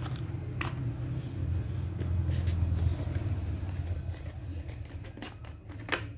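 Paper sticker labels and their packs rustling and clicking as they are handled, over a steady low rumble that swells about two seconds in.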